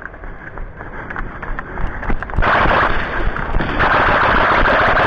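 Airsoft guns firing, with scattered shots at first and a loud, dense rapid rattle of fire starting about two and a half seconds in.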